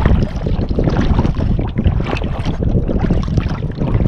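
Wind buffeting the microphone on the bow of a sea kayak being paddled, with water splashing and lapping against the hull.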